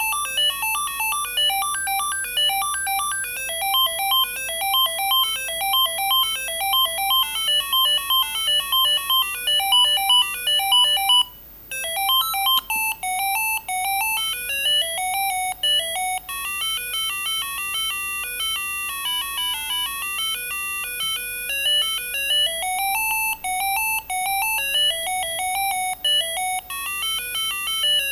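Siemens A55 mobile phone ringtones playing: a quick electronic melody of short repeated notes stops about eleven seconds in, and after a brief break a new tune starts, made of rising and falling runs of notes.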